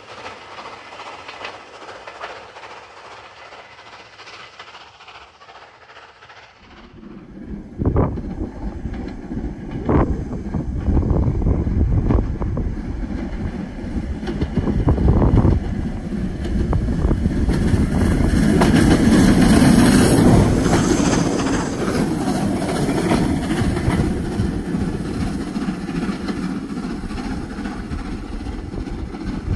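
Steam locomotive 45627 Sierra Leone, an LMS Jubilee class 4-6-0, running through on the main line. It is faint and distant at first. About seven seconds in it turns loud with a rumble of exhaust and the clatter of wheels over rail joints, with several sharp knocks, is loudest about two-thirds of the way through, and slowly eases as it moves away.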